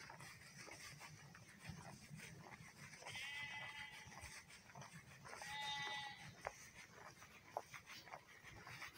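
Sheep bleating twice, once about three seconds in and again, louder, a couple of seconds later.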